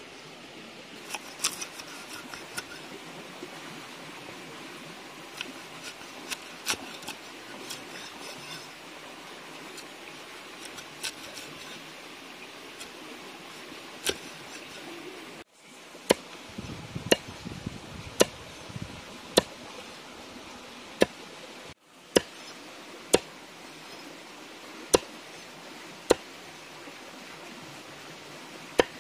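Steel cleaver chopping fish into pieces on a wooden log block: single sharp chops, light and scattered at first, then louder and more regular, about one every half second to a second, in the second half. A steady hiss of running stream water lies underneath.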